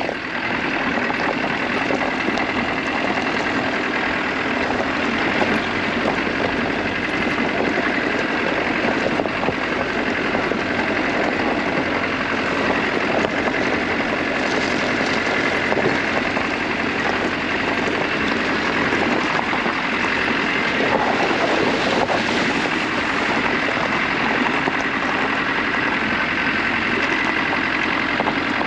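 Land Rover engine running steadily as the vehicle is driven along an unsurfaced byway.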